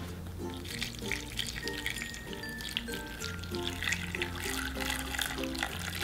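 Water poured in a thin stream into a pot of fried jeon pieces and radish, splashing onto the food, starting about a second in, to make a stew. Light background music with plucked notes plays throughout.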